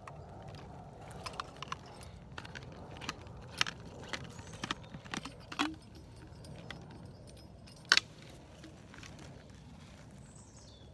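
Handling noise of a plastic LifeStraw filter bottle being lowered to the water: a run of light clicks and knocks over a steady rustle, with one sharp click about eight seconds in, the loudest sound.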